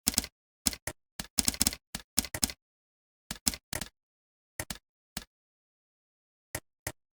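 Typing on a computer keyboard in short bursts of keystrokes with pauses between. It is busiest in the first two and a half seconds, then comes a cluster of keys, a few scattered presses, and two last keystrokes near the end.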